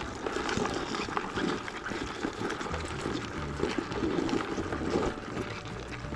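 Live rice-paddy crabs scrabbling in a plastic basin: a dense patter of small clicks and scratches from legs and claws on the plastic and on each other.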